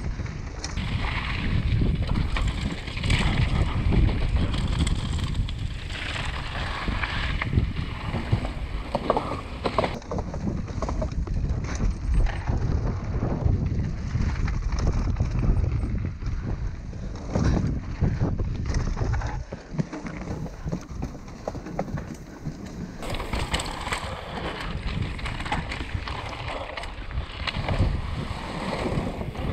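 Wind buffeting a helmet-mounted action camera's microphone as a Canyon Torque mountain bike descends a downhill trail, with tyres rolling over gravel and dirt and the bike clattering over bumps.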